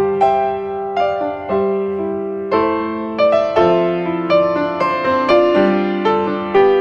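Background music played on piano: a slow, gentle melody of struck notes and held chords.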